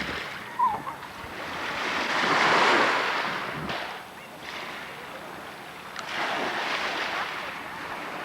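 Small waves washing onto a sandy beach: a rushing hiss that swells about two seconds in, dies back, then swells again a few seconds later.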